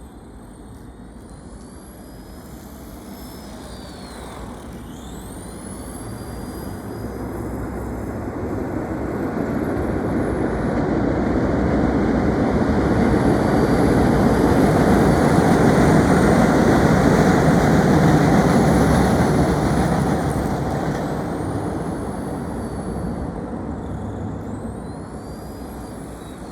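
Fast electric RC car running, its motor whining up and down in pitch as it speeds up and slows, over a rumble of noise that grows to its loudest in the middle and then fades away.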